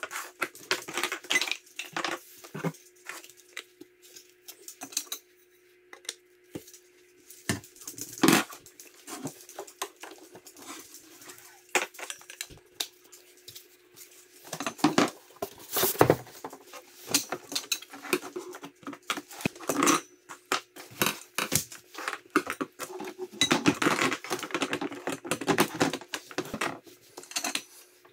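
Black plastic corner connectors and poles of a worm-bin stand being handled and fitted together on a wooden floor: irregular clicks, knocks and clatter. A faint steady hum runs underneath through about the first half.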